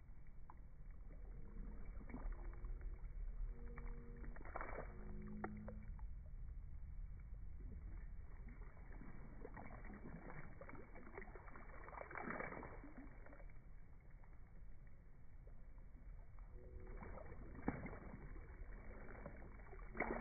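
Rubber wellington boots wading slowly through a shallow puddle, the water sloshing and splashing in several drawn-out surges. The audio is slowed down by slow-motion recording.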